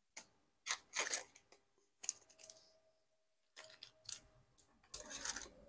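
Trading cards and plastic card sleeves being handled: a series of about five short rustling, scraping strokes.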